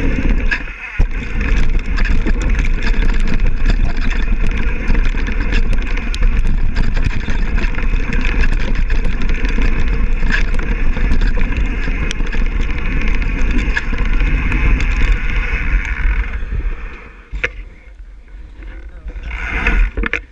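Downhill mountain bike ridden fast on a dirt trail, heard from a GoPro on the bike or rider: wind rushing over the microphone and tyre noise, with many small clicks and rattles from the chain and frame. The noise drops away about sixteen seconds in and swells again briefly near the end.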